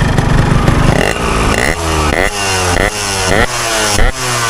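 Hot two-stroke motorcycle engine with an aftermarket exhaust, running steadily for about a second and then revved in a quick series of throttle blips, its pitch swinging up and down about twice a second.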